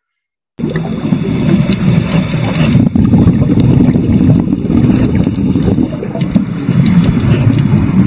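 Underwater ambient sound from a diving camera's own microphone: a loud, low, muffled rumble of water noise with a fine crackle through it, starting abruptly about half a second in.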